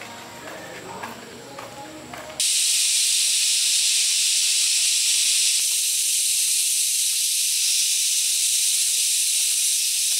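A steady, loud, high hiss starts abruptly about two and a half seconds in and holds evenly, after a couple of seconds of fainter mixed sound.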